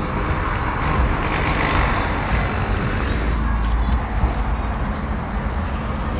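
Road traffic going by: a steady noise of passing vehicles with a low rumble, swelling about a second or two in and with a deeper rumble a little later.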